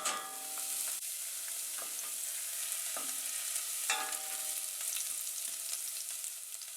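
Food sizzling steadily in hot oil in a pan, with a utensil stirring and clinking against the pan a few times.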